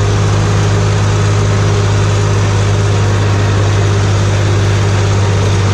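Tractor engine running steadily under load with a constant low hum and rattle, heard from inside the cab as the tractor drives across a ploughed field.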